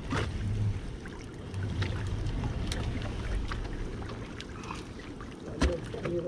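Wet nylon net being hauled by hand over the side of a wooden boat, water dripping and splashing off the mesh, with scattered small clicks over a low steady rumble. A sharp knock sounds near the end.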